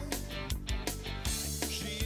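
Background music: an upbeat guitar-driven rock track with a steady drum beat.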